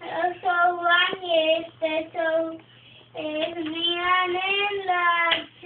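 A young child singing a tune unaccompanied: several short phrases, a brief pause about halfway, then a longer phrase with held notes.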